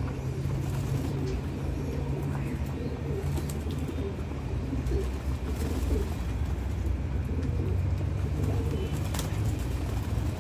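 A flock of domestic pigeons cooing together, many overlapping coos, over a steady low hum.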